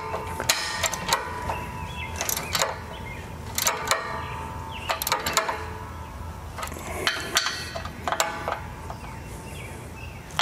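Ratchet wrench clicking in short bursts every second or two as the mounting bolts of an electric trailer jack are tightened down against the camper's tongue.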